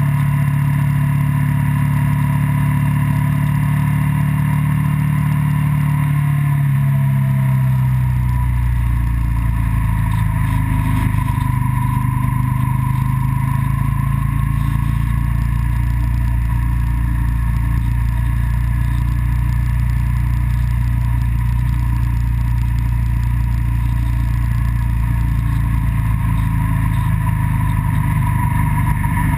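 A road vehicle's engine running at speed, with wind and road noise. The engine note drops about seven seconds in, then runs steady.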